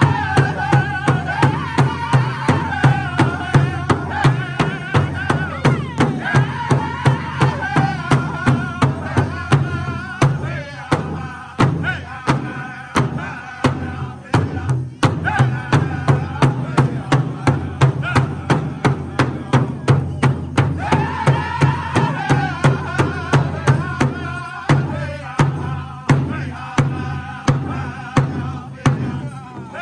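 Powwow drum group: several men strike one large shared drum with padded beaters in a steady unison beat while singing together in high-pitched voices. The singing is strongest at the start and again about two-thirds of the way through, with the drumbeat carrying on throughout.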